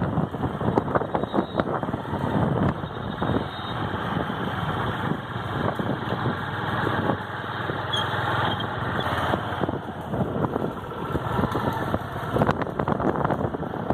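A motor vehicle's engine and road noise while driving on a rough road, with many short knocks and rattles throughout.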